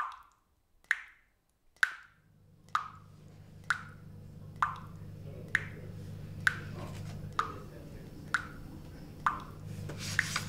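Water dripping from a tap into a sink, a steady plop about once a second. A low hum fades in after about two seconds and grows slowly underneath.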